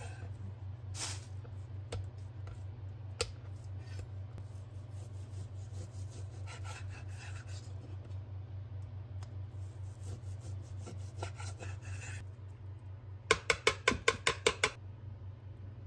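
A knife slicing raw beef on a wooden cutting board in soft rasping strokes, over a low steady hum. Near the end, a quick run of about ten sharp clicks as wooden chopsticks knock against the bowl while mixing the beef.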